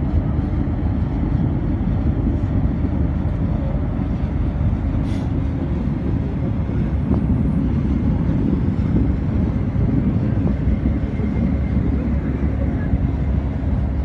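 Steady low rumble with a faint hum running through it, from a ferry's engines heard on deck.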